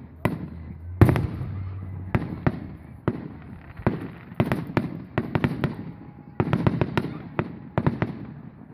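Fireworks exploding in a rapid series of bangs, a few single reports at first and then dense clusters of bursts, as in the finale of a display.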